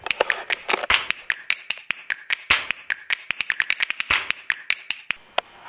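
A fast, irregular run of sharp clicks and taps that stops about five seconds in.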